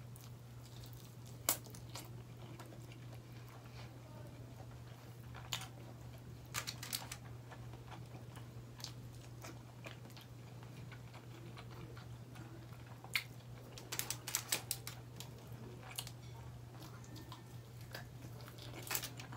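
Mouth sounds of a person eating roast chicken with his hands: chewing, lip smacks and short clicks, scattered and soft, with a quick cluster about two-thirds of the way through. A steady low hum runs underneath.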